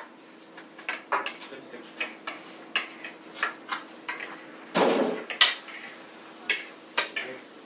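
Chopsticks and spoons clicking and scraping against ceramic plates and bowls while people eat: scattered light clicks, with a louder, longer clatter about five seconds in.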